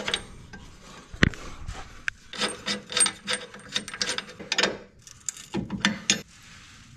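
A hand tool scraping in quick, short strokes, about two to three a second. There is a single sharp knock about a second in, and a second short run of strokes near the end.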